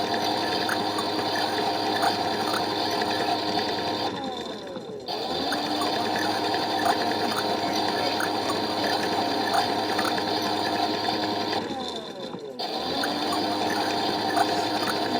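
Toy washing machine's small electric motor running on its hand wash cycle with the door open: a steady whine that winds down and stops about four seconds in, starts again a second later, then winds down and restarts once more near the end.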